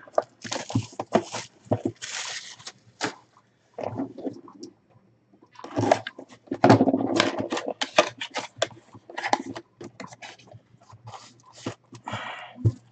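Cardboard baseball box being handled and opened by hand: irregular scraping, tapping and rustling of the cardboard and packaging, busiest about halfway through, with a dull thump near the end.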